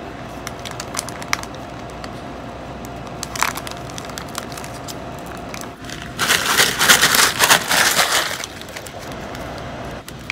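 A kraft-paper gift bag being handled and pulled open: scattered small crinkles and clicks of paper, then a loud stretch of crumpling and rustling lasting about two seconds, a little past halfway.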